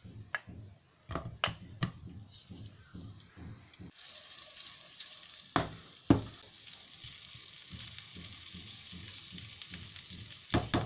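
Cubes of cured pork belly dropped into a nonstick frying pan with a little olive oil, landing with light knocks. About four seconds in, the pork starts sizzling steadily in the heating oil, with a couple of sharp clacks. A plastic spatula knocks against the pan near the end.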